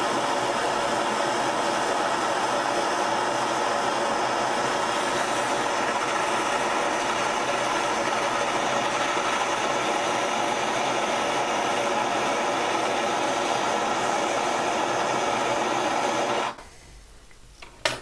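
Handheld gas torch burning with a steady rushing hiss as it heats an aluminum miter saw fence to melt aluminum brazing rod into a crack. It shuts off abruptly about 16 seconds in, followed by one sharp click near the end.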